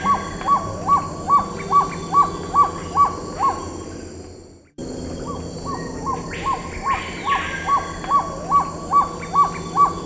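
Black-tailed trogon singing: a steady series of short, even 'cow' notes, about two and a half a second and growing louder over the first few. The series fades out a little past three seconds in, and after a brief gap a second, identical series begins.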